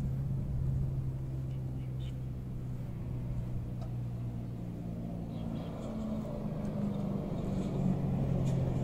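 Beiben sewage suction truck's diesel engine idling with a steady low hum, growing a little louder about halfway through.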